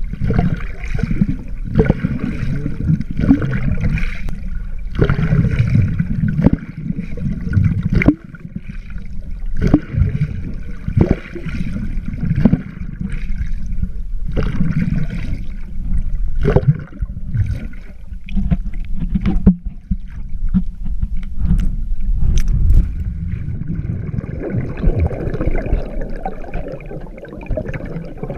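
A swimmer's front crawl heard through a handheld waterproof camera partly underwater: muffled water sloshing that surges with each arm stroke, about every second and a half, with sharp knocks. Toward the end the strokes give way to a steadier churning as bubbles rise around the submerged swimmer.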